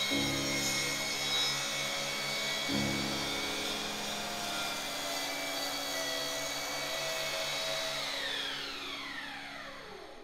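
Circular saw mounted upside down under a homemade table-saw top, running steadily at full speed. About 8 seconds in it is switched off, and its whine falls in pitch and fades as the blade coasts to a stop.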